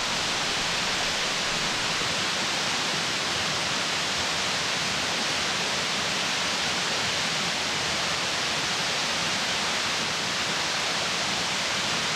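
A waterfall's steady rush of falling water: a constant, even hiss with no breaks.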